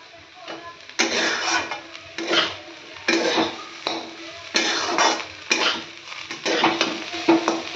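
A spoon scraping around a metal pan of milk and vermicelli in repeated stirring strokes, about one a second starting about a second in, each stroke carrying a faint ring from the pan.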